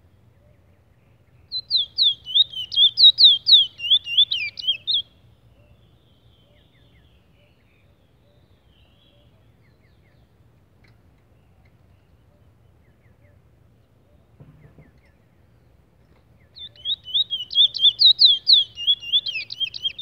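Caged Trinidad bullfinch (chestnut-bellied seed-finch) singing two bursts of fast, high, whistled notes, each a few seconds long. The notes come several a second, each one sliding downward. A faint knock falls between the two bursts.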